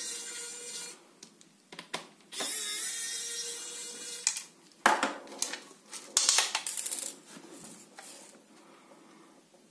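Small electric precision screwdriver whirring in two runs of a second or two each, backing out screws, followed by a scatter of sharp clicks and light metallic knocks as small parts and screws are handled and set down.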